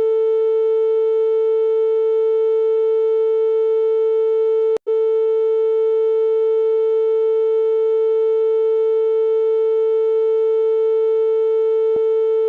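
Steady synthesized 'ear unclogging' tone at one mid pitch, with a string of overtones above it. It breaks off for an instant with a click about five seconds in, then carries on unchanged.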